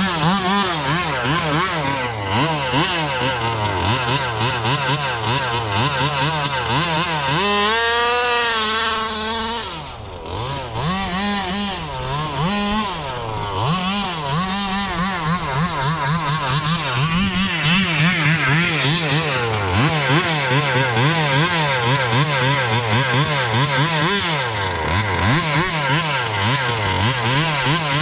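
Small two-stroke engine of a 1/5-scale Baja buggy, revving up and down over and over as it is driven. Around eight seconds in it holds a high rev for about two seconds, then drops off briefly near ten seconds.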